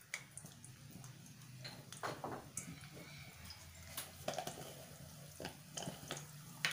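Sliced onions frying in hot oil in a kadai: faint, irregular crackles and pops, with a low steady hum underneath.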